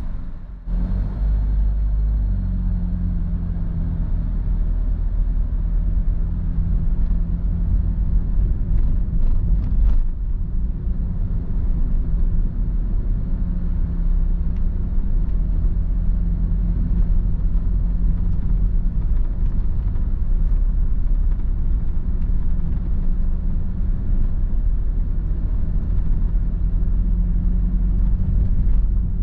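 Car driving, heard from inside the cabin: a steady low rumble of engine and tyre noise. The sound drops out briefly about half a second in.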